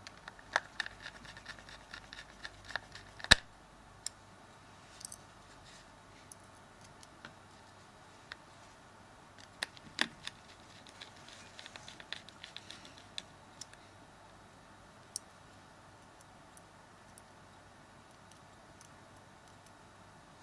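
Scattered small clicks, taps and light rattles from handling a Samsung Galaxy S3's plastic frame and a small Phillips screwdriver while its screws are put back in, with one sharp knock about three seconds in.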